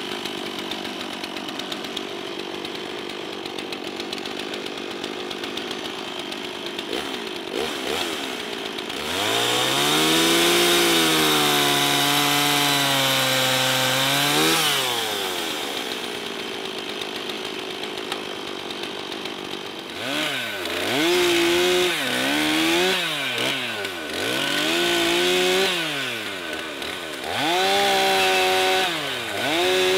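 Two-stroke Stihl chainsaw idling, then revved up and held at high speed for about five seconds while cutting limbs, before dropping back to idle. Later it is revved in several short bursts of a second or two each.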